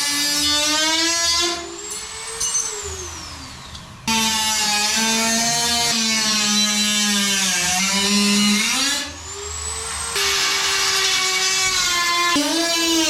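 Dremel rotary tool cutting aluminum sheet, its high-pitched whine sagging and wandering in pitch as it bites into the metal. Twice it comes off the cut: the sound drops, a thin high whine falls away, and the tool comes back in loud, suddenly about four seconds in and again after a rising whine near ten seconds.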